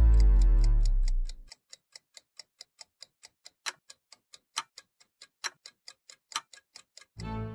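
A deep boom with music for the first second and a half, then a mechanical watch ticking alone, rapid and even at about five ticks a second. Music with strings comes back just before the end.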